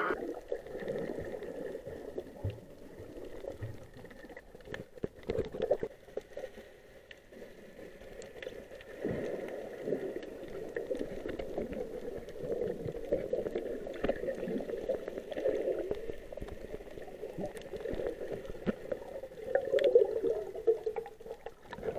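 Muffled underwater gurgling and bubbling of water moving around a submerged action camera while snorkeling, with louder surges about five seconds in, about nine seconds in and near the end.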